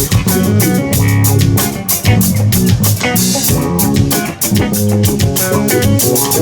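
Rock band playing an instrumental passage between vocal lines: guitar and bass guitar over a steady drum-kit beat.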